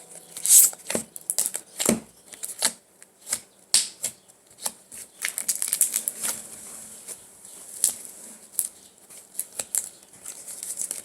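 Thick, sticky glitter slime being poked and squished by hand, giving irregular sticky clicks and pops, a few louder ones among many small crackles.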